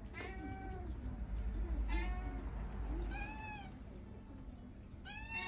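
Domestic cat meowing repeatedly: four meows, each rising then falling in pitch, spaced a second or more apart.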